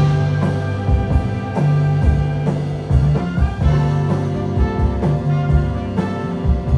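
Jazz big band playing live: saxophone, trombone and trumpet sections hold sustained chords over drum kit and rhythm section, with regular cymbal and drum strokes.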